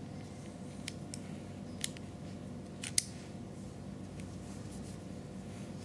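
Light metallic clicks from the bolt action of a 1:3.5 scale miniature Mauser 98k carbine being worked by hand: a few small clicks, the loudest a double click about three seconds in, over a steady low hum.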